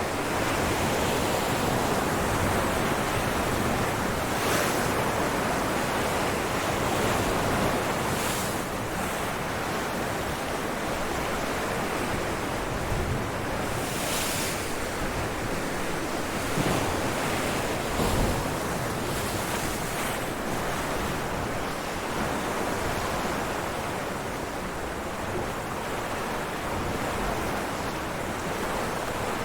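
Ocean waves breaking on rocks: a continuous rushing roar of surf with repeated swells as waves break, a few sharper splashes about two-thirds of the way through, and some wind in the microphone.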